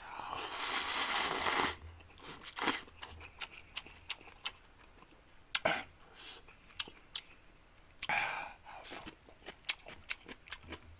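Instant ramen noodles slurped loudly from a bowl for about a second and a half, then open-mouthed chewing with wet smacks and chopstick clicks, and a second, shorter slurp about eight seconds in.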